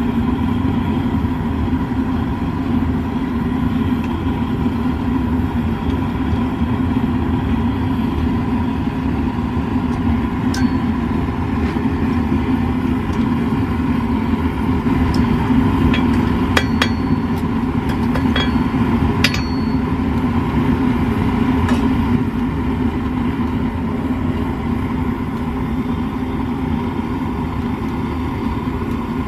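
A propane gas forge's burner running steadily. Midway through, several light metallic clinks ring out over it as tongs and steel stock knock together.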